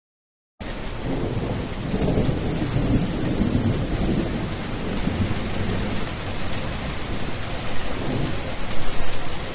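Steady rain with low thunder beneath it, starting abruptly about half a second in.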